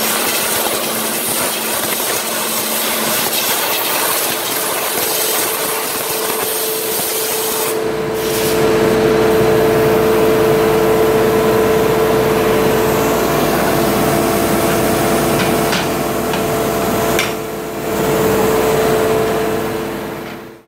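Compressed air hissing steadily from a blow-gun nozzle on an air hose, blowing out the cavities of a rubber mold plate. After about eight seconds it gives way to a louder, steady machine hum with two held tones and a low rumble, which dips briefly near the end.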